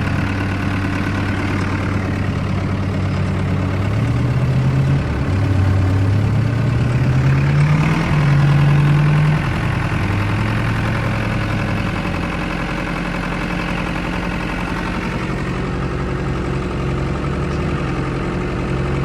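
Tractor engine running, then revving up under load from about four seconds in, held high for a few seconds and easing back to a steady run after about ten seconds, as it tows a stuck truck out.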